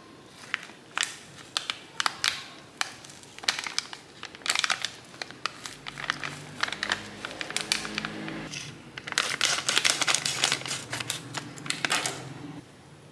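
Crinkly plastic sachet crackling as it is handled in the hand, in a run of sharp crackles that grows densest about nine seconds in, then snipped open with scissors near the end.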